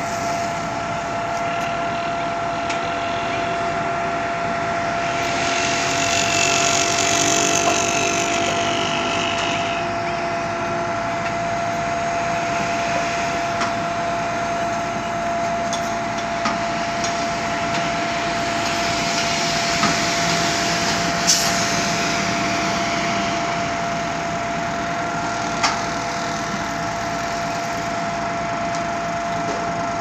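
Concrete pump truck running, its hydraulics whining steadily as the boom is folded, with a few sharp knocks from about two-thirds of the way through.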